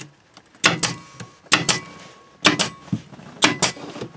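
A small staple gun loaded with T50 staples firing repeatedly into carpet on the floor, about once a second. Each shot is a sharp double snap.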